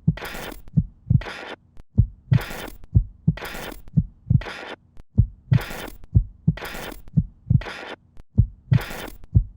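A steady heartbeat-like pulse, about one beat a second: paired low thumps, each beat joined by a hissing swell.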